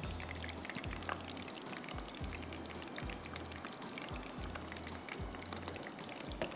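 Marinated boneless chicken pieces deep-frying in a wok of hot oil: a steady sizzle full of fast crackles.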